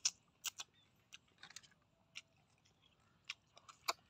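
Close-up eating sounds: wet lip smacks and sharp sucking clicks as cooked snails are sucked out of their shells and chewed. About eight separate clicks come at irregular intervals, two of them close together near the end.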